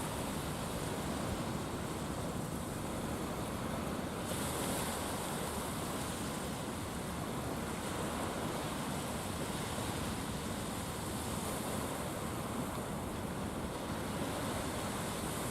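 Steady wash of sea waves with wind noise on the microphone.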